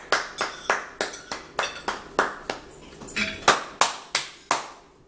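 Hands clapping in a steady rhythm, about three claps a second, stopping shortly before the end.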